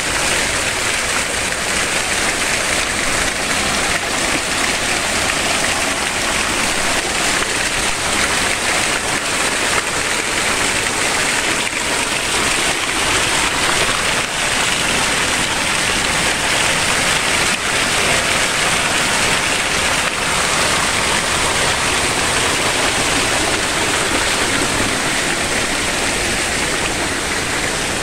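Thin streams of water pouring out of concrete culvert pipes and splashing onto rocks below, a steady rushing and splashing. The flow is much reduced.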